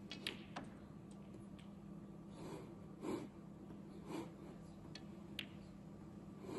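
Faint sharp clicks of snooker balls, two in quick succession just after the start as the cue tip strikes the cue ball and the cue ball hits a red, and a lighter click near the end. A few soft breathy puffs fall between them, over a low steady hum.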